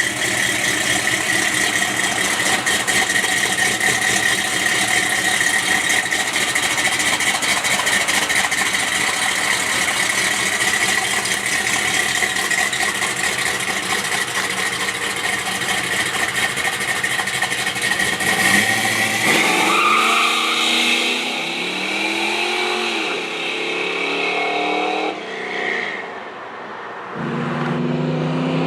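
The 1962 Plymouth Savoy wagon's 440 Magnum big-block V8 running under way. About two-thirds of the way in the engine note rises and falls with the revs, and near the end it comes back in strong and low.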